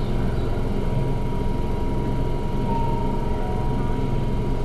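Steady low hum and hiss of a stopped electric commuter train's onboard equipment, with a faint high steady whine, heard from the driver's cab.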